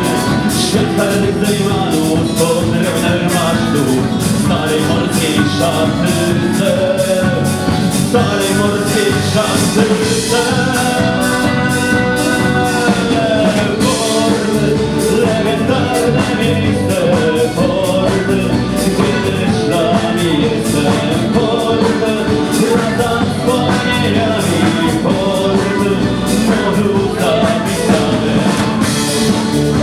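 Sea-shanty band playing live: fiddle, acoustic guitar, electric bass guitar and drum kit together, loud and continuous with a steady beat.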